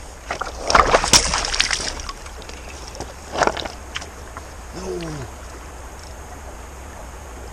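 River water lapping and splashing against the shoreline rocks right at the microphone, over a steady low rumble. The loudest splashy burst comes about a second in, a shorter one about three and a half seconds in, and a brief falling tone sounds about five seconds in.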